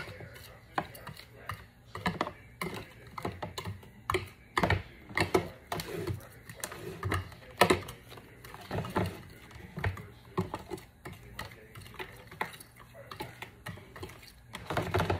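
A metal fork clicking and scraping against a glass baking dish while stirring flour and cornmeal, in irregular quick taps.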